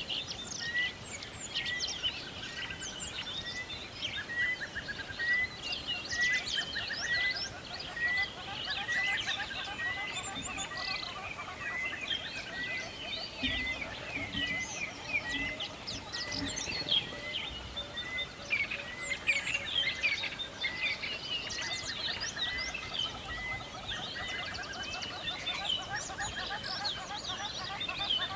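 A chorus of several songbirds chirping and trilling, with one bird repeating the same short note a little more than once a second beneath the busier higher calls.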